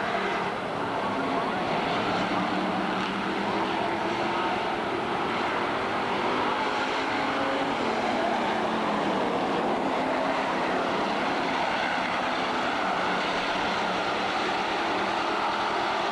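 A pack of street stock race cars with their engines running hard at racing speed around the oval. The engine pitch falls and then rises again around the middle as cars pass.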